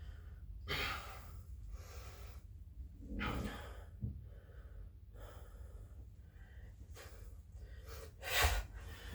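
A person breathing hard from doing burpees: several loud, rushing breaths a few seconds apart, the loudest near the end, with a soft knock about four seconds in.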